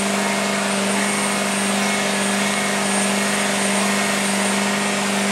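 Power unit of the Mk.III giant robot running steadily: an LS3 Corvette V8 driving hydraulic pumps that hold the system at pressure. A constant low drone with a steady hum in it that does not rise or fall.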